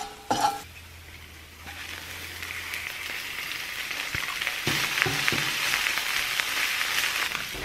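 Chopped purple kale hitting hot olive oil and garlic in a stainless steel frying pan, starting a sizzle about two seconds in that grows louder as it is stirred, with a few knocks of a metal spatula against the pan.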